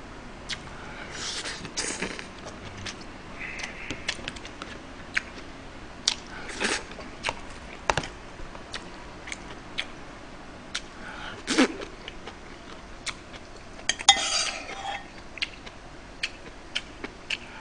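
Metal spoon clicking and scraping against a black earthenware pot of stew and plastic side-dish containers, in scattered sharp clinks, between short bouts of chewing.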